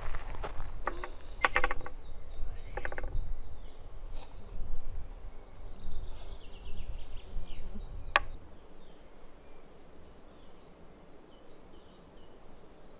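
Wooden bowls and lids being handled: a few wooden knocks and clicks in the first three seconds and one sharp click about eight seconds in. Underneath is a low outdoor rumble that drops away soon after.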